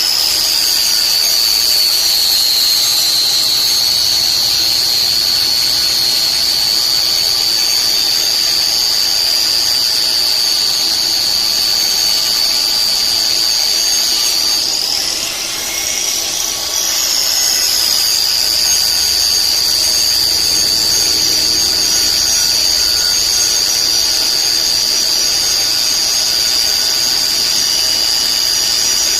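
A power tool running steadily with a high-pitched whine. About halfway through, the pitch wavers and the level dips for a couple of seconds, then the tool settles back to its steady whine.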